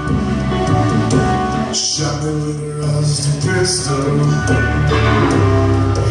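Live blues-rock band playing with electric guitar, bass and drums, with a brief break in the band about two seconds in.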